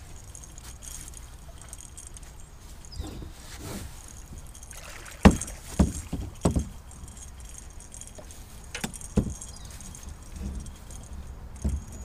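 Sharp knocks and thumps on an aluminum jon boat's hull while a hooked catfish is brought alongside and landed: a cluster of four about five to six and a half seconds in, the first the loudest, two more near nine seconds and one just before the end.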